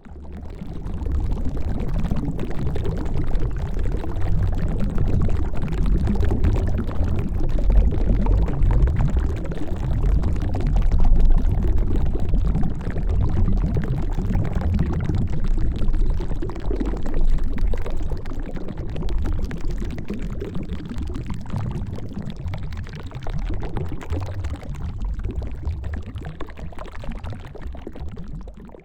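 Underwater ocean bubbles: a dense, continuous bubbling heard as from below the surface, heaviest in the low range and thinning slightly near the end.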